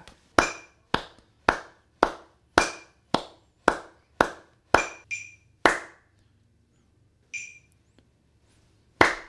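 Hands clapping in a steady beat, just under two claps a second, along with a metronome app's short high-pitched click sounding on beat 1 only. This is a time-feel practice exercise. The steady clapping stops about six seconds in, and only a few sparse clicks and claps follow.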